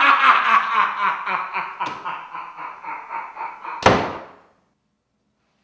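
A man's loud, drawn-out villain's laugh in quick repeated 'ha-ha' pulses that slowly fades, then a door slamming shut with a single sharp bang about four seconds in.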